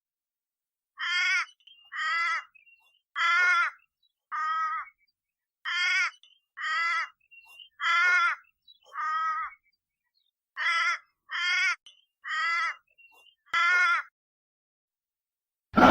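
An animal's short, harsh calls, twelve in all, in three runs of four at about one a second.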